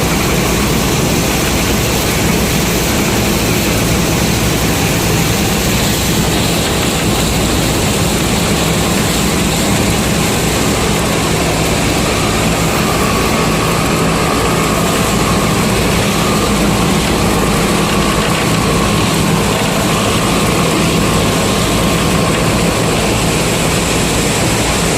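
Combine harvester's diesel engine running steadily at working speed, with an even mechanical noise over it. Around the middle, a faint high whine rises and fades.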